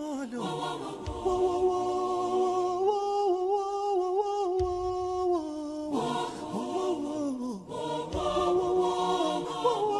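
Background vocal music: several voices sing long held, chant-like notes that slide between pitches, with a deep low thump about every three and a half seconds.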